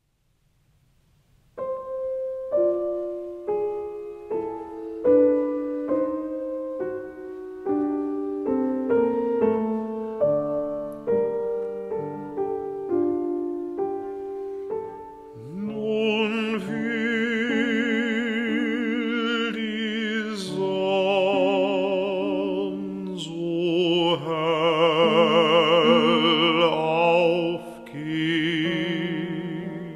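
Piano music begins about a second and a half in. About halfway through, an operatic singing voice with strong vibrato joins the piano.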